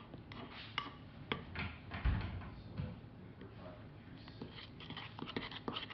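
Light scattered clicks and knocks with a dull thump about two seconds in: handling and mixing noise as baking-soda-and-shampoo slime is worked in a bowl.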